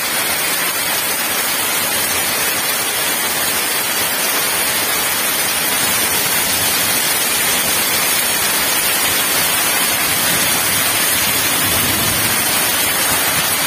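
Heavy tropical downpour falling steadily onto a concrete yard, a dense, even hiss.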